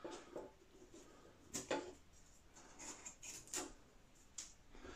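Faint handling of a balsa model-plane fuselage as its iron-on plastic covering is pulled away: a few short scattered crackles and scrapes.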